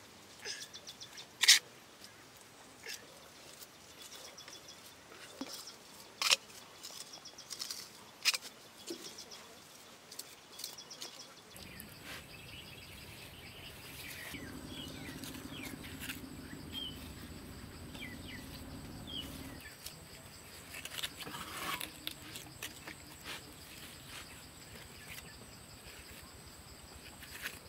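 A small hand trowel tapping and scraping on wet mud, with a few sharp knocks in the first third. Birds chirp in the background, and a low steady hum runs through the middle.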